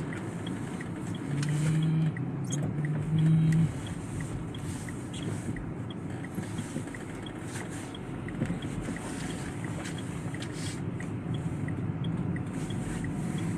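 Vehicle driving, with steady road noise, a faint regular ticking about twice a second, and two short low tones about one and a half and three seconds in.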